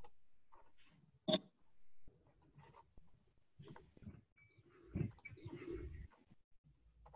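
Faint computer mouse clicks and small desk knocks picked up by a laptop microphone during screen sharing, with one sharp click about a second in and a soft low bump about five seconds in.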